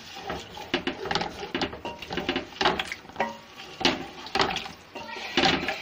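Wooden spoon stirring boiled chickpeas in a large aluminium pot, with irregular knocks and scrapes against the pot, several a second.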